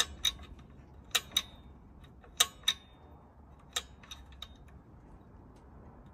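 Sharp metal clicks from the throttle linkage and return spring of a 79cc four-stroke engine with its governor bypassed, as the linkage is worked back and forth. The clicks come in quick pairs three times, then a few fainter single clicks follow.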